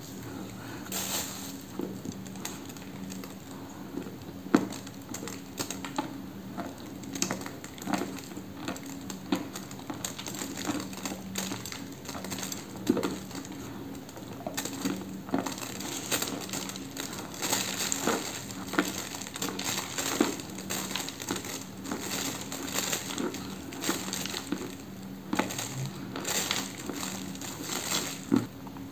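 Dry chalk being crunched and chewed in the mouth: many irregular, crisp crunches one after another.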